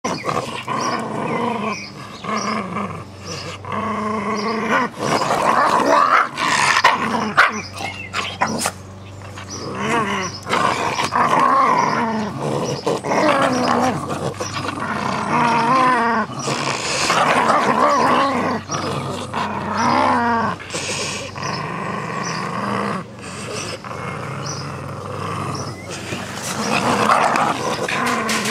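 Jack Russell terriers growling in play as they tug at a soft toy rabbit, the growling rising and falling with only short breaks.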